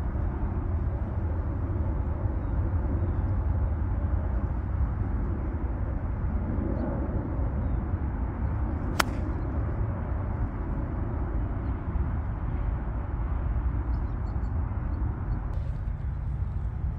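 A 48-degree Titleist AP3 iron striking a golf ball: a single sharp click about halfway through, over a steady low outdoor rumble.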